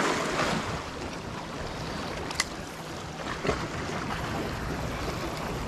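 Sea waves washing and splashing against the boulders of a rock seawall in a steady rushing wash, with one sharp click about halfway through.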